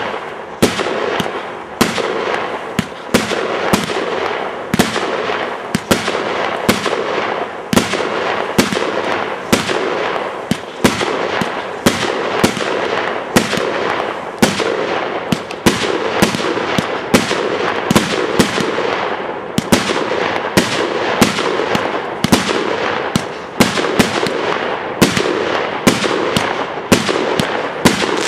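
Fireworks going off in a rapid string of sharp bangs, about two a second, over continuous crackling.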